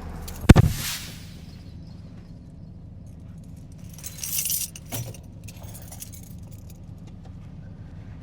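A loud thump about half a second in, then a bunch of keys jangling about four seconds in and a sharp click just after, over a steady low hum.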